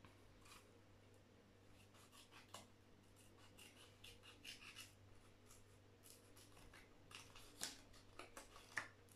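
Near silence with faint rustling and small clicks of makeup items being handled, and a few sharper clicks near the end.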